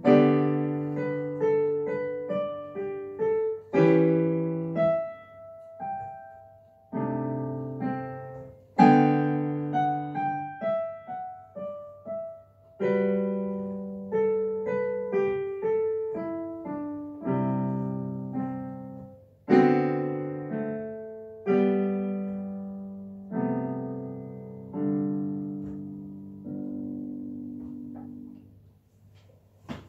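Digital piano playing a solo lyrical piece: melody over chords, each struck and left to ring, ending on a final chord that fades out near the end.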